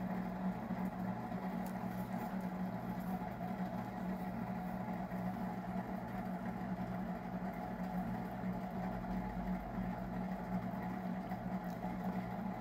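A steady low mechanical hum, unchanging throughout, of some running machine or appliance.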